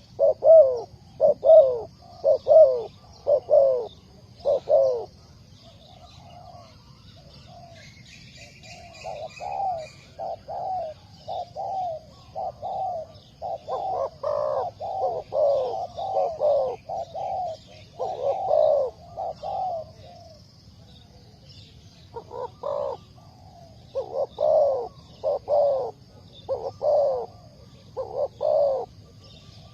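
Spotted dove cooing: repeated low, falling coo notes in three long series, with pauses about five seconds in and about twenty seconds in. A small bird chirps briefly around eight seconds in, over a faint steady high-pitched hiss.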